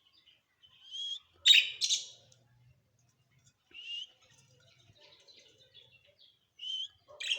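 Parrot calling: short rising whistles, with two loud harsh squawks in quick succession about a second and a half in, and a sharp call near the end.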